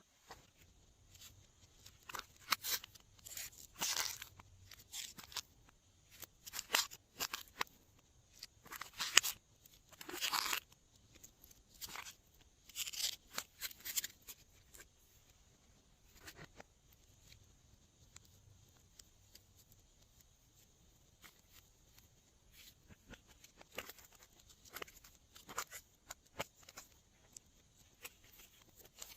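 Glossy slime being worked in plastic piping bags: irregular crinkling and crackling, busiest in the first half, sparse for a while, then picking up again near the end.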